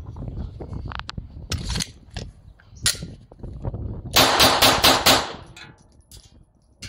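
Glock 17 Gen 5 pistol converted to .380 ACP firing a rapid string of about five shots a little after four seconds in, about five shots a second. A single sharp crack comes earlier, about three seconds in.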